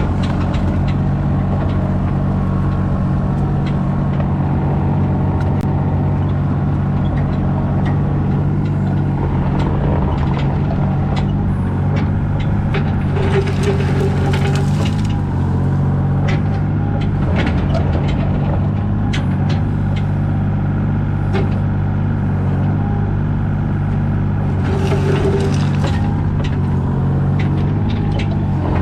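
Mini excavator's diesel engine running steadily under load, with scattered clanks and knocks from the machine working. A brief higher whine comes in twice, once about halfway through and again near the end.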